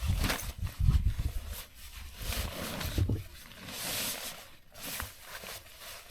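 Strong wind gusting across the microphone: irregular low buffeting rumble in the first three seconds, then an uneven rushing hiss.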